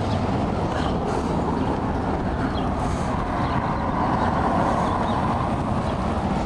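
Road traffic: cars driving past on a wide street, a steady rush of tyre and engine noise that swells a little about four to five seconds in.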